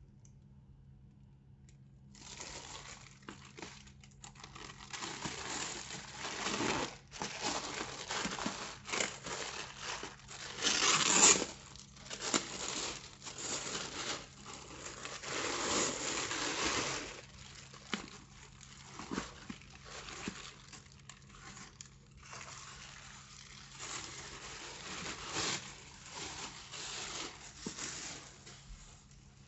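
Packaging crinkling and rustling as it is handled and pulled apart while a handbag is unboxed. It starts about two seconds in and goes on irregularly, with a loudest burst of crinkling around the middle.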